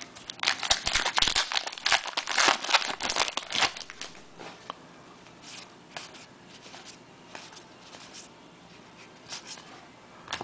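Trading-card pack wrapper crinkling and tearing for about three and a half seconds, then a few faint ticks of cards being handled.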